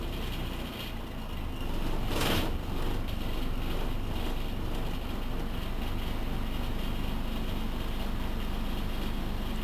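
1978 Berliet PR100 MI city bus's diesel engine idling steadily, with a brief hiss about two seconds in.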